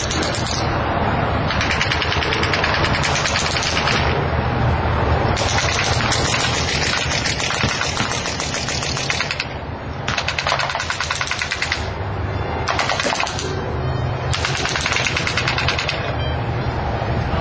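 Long strings of rapid machine-gun fire from airshow battle-effects pyrotechnics, broken by short pauses every few seconds.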